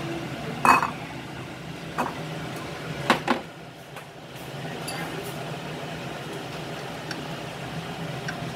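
A handful of short taps and clinks as chopsticks nudge fried mackerel steaks around on a glass plate, the loudest about a second in, over a steady low hum.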